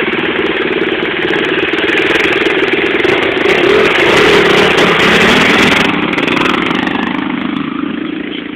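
A small engine running steadily with a rapid pulse, growing louder around the middle and fading near the end.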